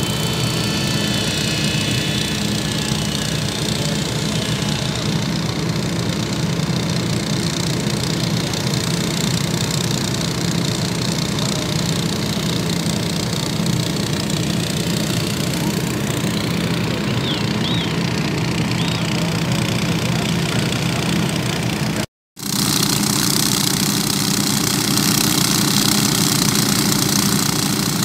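Engines running steadily and loudly close by. There is a short break in the sound about two-thirds of the way through, and after it the running is brighter and harsher, from portable gasoline water pumps draining floodwater.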